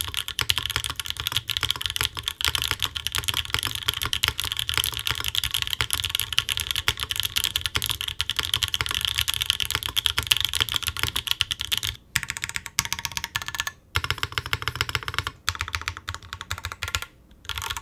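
Fast typing on a Mode Design Tempo 60% custom mechanical keyboard fitted with Obscura linear switches and Anthracite keycaps, a dense clacky run of keystrokes. In the last six seconds the typing breaks into shorter runs with brief pauses.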